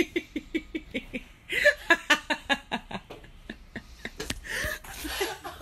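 A woman laughing hard in quick rhythmic pulses, about five a second, in three bouts with breathy gasps between them.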